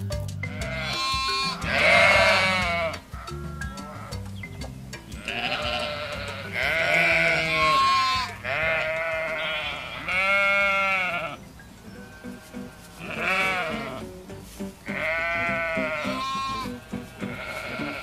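Sheep bleating over and over, about nine quavering calls of a second or so each, some louder and some fainter, starting about a second in. Background music plays underneath throughout.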